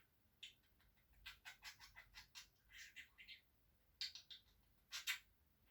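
Pet budgerigar chattering faintly in quick runs of short, high notes, with a louder pair of sharp notes about five seconds in.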